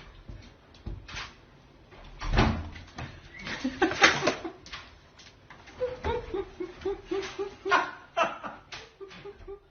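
A series of knocks and bumps, with a quick run of short, evenly spaced pitched sounds starting about six seconds in.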